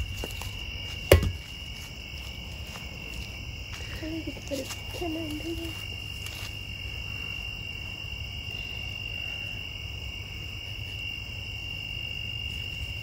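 A steady, high chorus of night insects, with one sharp smack on the building's metal skirting about a second in, struck to startle whatever animal is hiding underneath.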